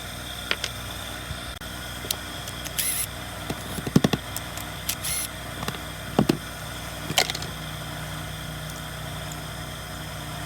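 Handling noises from working on a chainsaw: scattered clicks and knocks, including a loud cluster about four seconds in, and two short hissy scrapes, over a steady background hum.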